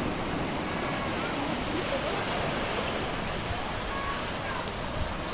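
Small waves washing in over a rocky shore, a steady rush of surf, with faint voices in the distance.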